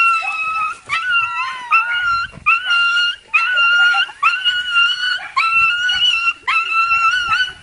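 A dog whining in a run of long, high-pitched cries, one after another about once a second: an excited greeting to its owner.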